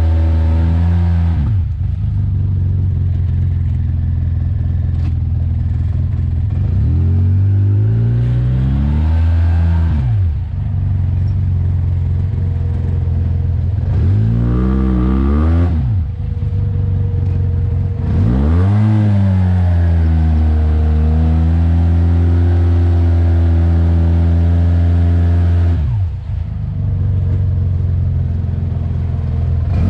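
Off-road vehicle engine pulling slowly through mud, revving up and easing off several times, with a steady low drone between the throttle rises.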